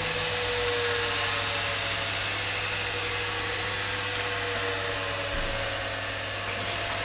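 Bench polishing machine running with its cloth buffing wheel spinning free, a steady motor hum and whine.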